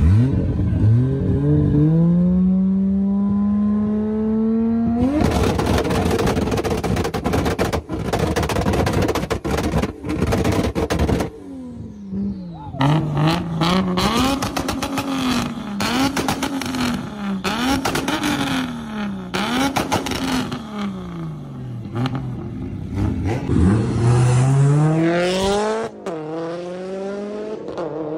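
Modified performance car engine and exhaust. It climbs through the revs, then crackles and pops rapidly for several seconds. Next it is blipped up and down in quick revs, still crackling, and near the end it pulls up through the revs again.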